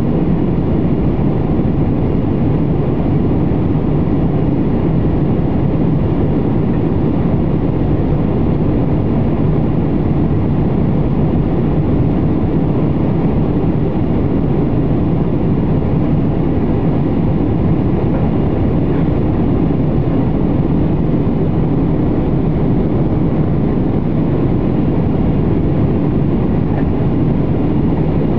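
Airliner cabin noise in flight: a steady, even rush of engine and airflow noise heard from inside the cabin, deepest in the low range.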